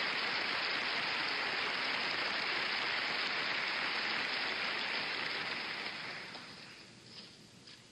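Theatre audience applauding in a dense, steady wash that dies away about six seconds in, leaving a couple of faint knocks near the end.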